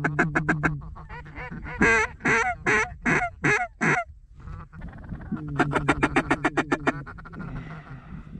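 Duck calls blown to bring in circling ducks: a fast run of short quacks, then six loud, separate quacks that drop in pitch, then another fast run of quacks about five and a half seconds in.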